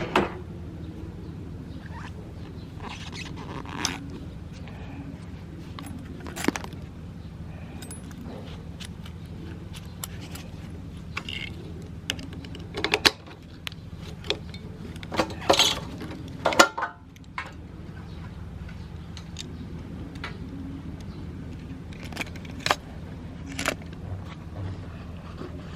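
Honda XL250 Degree's air-cooled single-cylinder four-stroke engine idling steadily after being revved, with scattered metallic clicks and clinks over it, busiest around the middle. The seller judges the engine free of abnormal noise.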